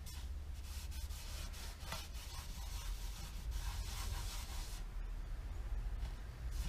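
Hand rubbing on the wood-veneer cabinet of a vintage Sony STR-6045 receiver to wipe off old paint spatter with gasoline. It makes a scratchy rubbing hiss that stops about five seconds in, over a steady low hum.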